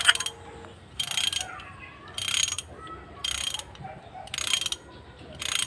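Socket ratchet wrench clicking in short bursts about once a second, five times, as a bolt on an engine's cylinder head is worked with repeated strokes of the handle.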